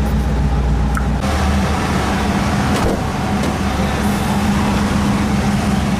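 Chevrolet Impala convertible driving with its top down: a steady engine hum under wind and road noise. The deepest rumble drops away about a second in.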